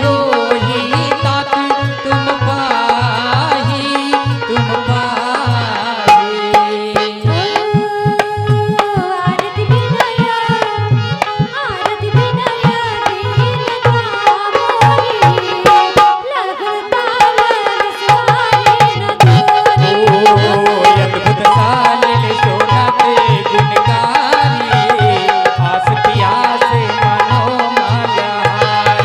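Devotional music: a hand drum plays a quick, steady rhythm under a sustained melody. The drum drops out briefly twice, around eight and sixteen seconds in.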